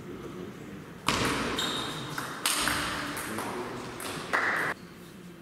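Table tennis rally: the celluloid ball clicking off bats and table. About a second in a sudden loud noise fills the hall as the point ends, surging twice more before it cuts off shortly before the end.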